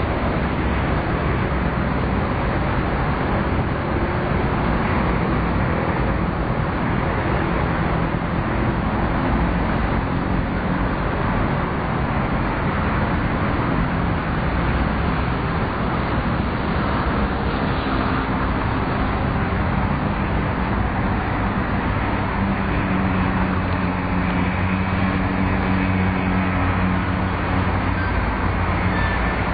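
Steady rushing noise of city traffic and wind on the microphone. Under it, faint pitched lines rise and fall, likely a small electric RC plane's motor and propeller changing speed.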